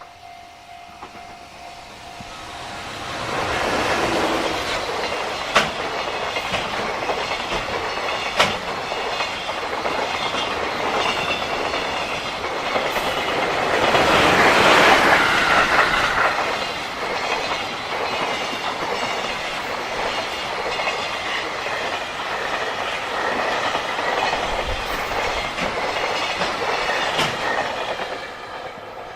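A JR Freight container train passes close by, wheels clattering over the rail joints. It builds up over a few seconds, is loudest about halfway through, and dies away near the end, with two sharp knocks in the first ten seconds. A level-crossing bell rings steadily before the train drowns it out and comes through again as the train fades.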